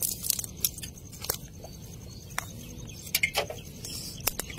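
Fishing net being handled by hand on wet grass: scattered light clicks and rustles, irregular and sparse.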